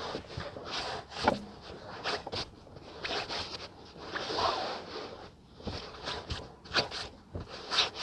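Fabric rustling and scrunching in irregular bursts, with short sharp crackles, as a garment is twisted and pressed by hand into a crinkled bundle.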